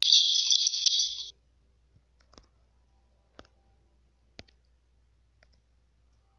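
About a second of hissy, high-pitched audio from the video clip playing back in a phone video editor, cut off suddenly as playback stops. Then faint clicks follow, about once a second.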